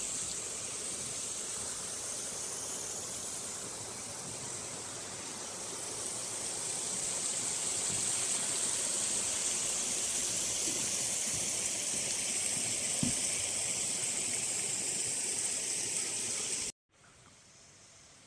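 A steady, high-pitched hiss that swells slowly and then cuts off sharply near the end.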